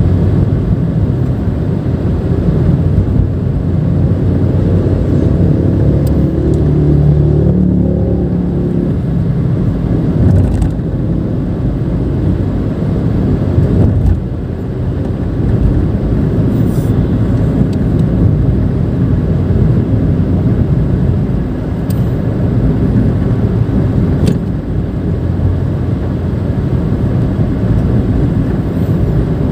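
Nissan March 1.2 automatic being driven: a steady low rumble of its three-cylinder engine and tyre noise, with a few brief knocks along the way.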